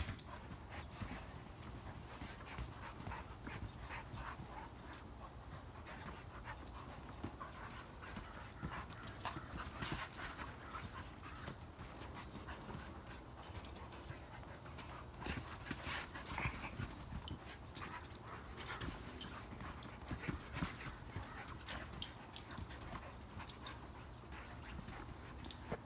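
Two dogs play-fighting on a trampoline: irregular soft taps and thumps of paws on the mat, with panting.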